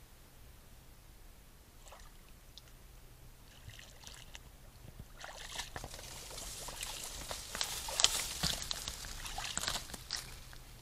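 Splashing and sloshing in shallow water as an animal moves through it: a few scattered splashes at first, then a dense run of splashes from about halfway, loudest about three quarters in.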